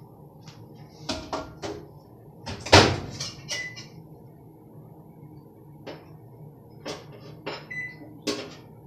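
Microwave oven in use: a door clunk and several clicks and knocks, the loudest about three seconds in, short high beeps from its keypad, and the steady hum of the oven running underneath.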